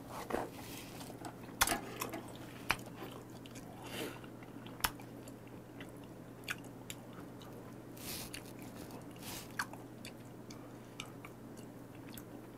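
A person chewing raw beef spinal cord close to a clip-on microphone: scattered soft wet clicks and smacks of the mouth, with a steady low hum underneath.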